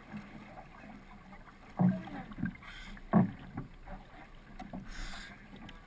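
Paddle strokes of a single sprint racing kayak: the wing-paddle blades catching and pulling through the water, with splashing and water washing along the hull. There are two sharp thumps, about two seconds and three seconds in, and fainter splashes in between.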